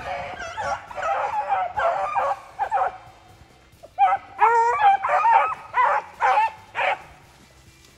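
A pack of beagles baying as they run the track of a snowshoe hare, in a string of high, bending yelps and bawls. The calls pause briefly about three seconds in, come back louder for a few seconds, then fade near the end.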